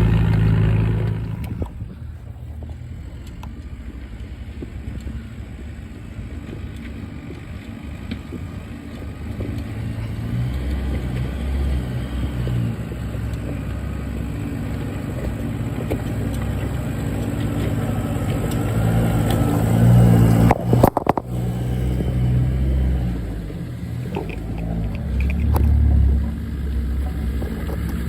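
Off-road 4x4 engines labouring over a rocky climb, the engine note swelling and easing as the vehicles crawl up, loudest about two-thirds through, with a short sharp knock around then.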